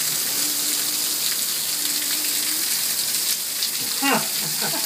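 Heavy rain falling steadily, a dense, even hiss of a downpour.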